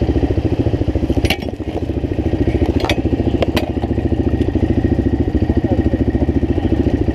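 ATV engine running steadily with an even, fast pulse. The engine sags briefly about a second in, and a few sharp clicks sound over it.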